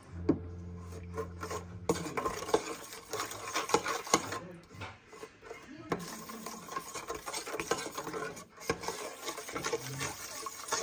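Metal spoon stirring and scraping a thin sauce mixture around a stainless steel mixing bowl: a fast, continuous run of scrapes and small clinks. A low steady hum sits under the first two seconds.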